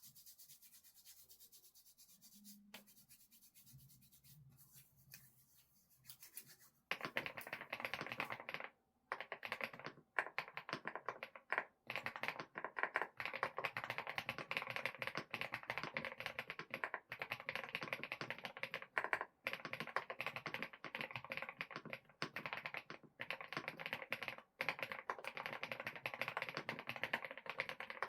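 Fast, continuous typing on a computer keyboard. It starts about seven seconds in after a quiet stretch and keeps up with only a few brief pauses.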